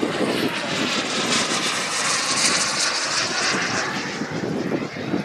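Radio-controlled model jet flying past overhead: a continuous high rushing whine that is strongest about halfway through.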